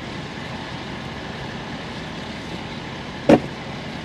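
Steady hum of a vehicle cabin with the engine idling, broken once about three seconds in by a short, sharp knock.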